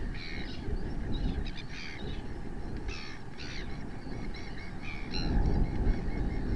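Wind buffeting the microphone with a low rumble that grows louder about five seconds in, over repeated short, harsh calls of gulls in the background.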